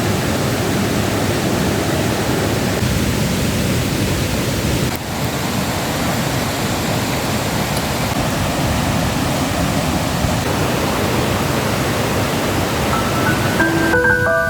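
Steady rushing water noise, with a slight change about five seconds in. Near the end a melody of separate pitched notes comes in as the rushing falls away.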